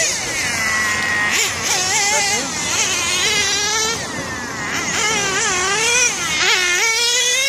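1/8-scale radio-controlled race cars running on the track, their motors whining at high pitch that rises and falls quickly over and over as the throttle is opened and closed through the corners.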